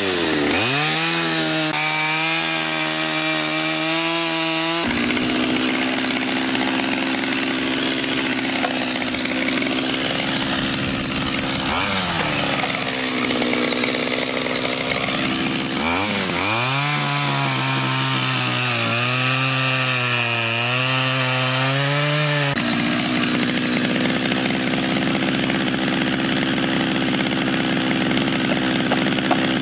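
Chainsaw running while cutting into a block of wood. Its engine pitch drops sharply and wavers several times as the chain bites into the wood, then runs steadier and higher in between.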